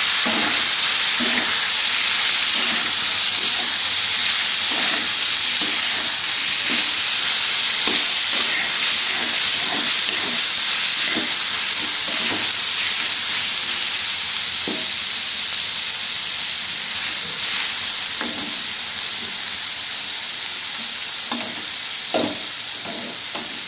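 Diced boiled turnips sizzling in hot oil in a non-stick frying pan, with a spatula scraping and stirring through them in short, irregular strokes.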